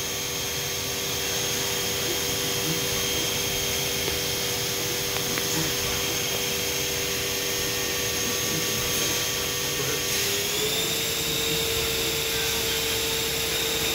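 Spindle of a 2008 Hurco VMX-42 vertical machining center, an 18 hp direct-drive dual-wound motor, running free at 4,000 RPM with a steady whine. About ten seconds in the whine steps up in pitch as the spindle is raised to 5,000 RPM.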